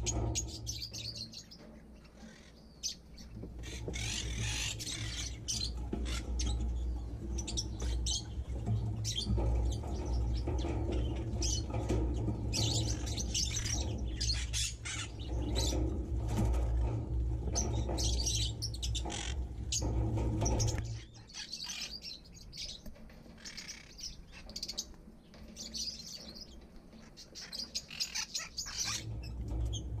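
A mixed aviary flock of budgies, lovebirds and finches chirping and twittering throughout, over a steady low rumble that fades out about two-thirds of the way through and returns near the end.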